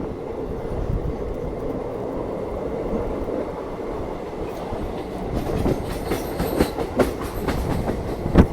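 Passenger train running on the track, a steady rumble of the coaches. From about halfway through come a quick series of sharp clacks, the wheels striking rail joints, loudest near the end.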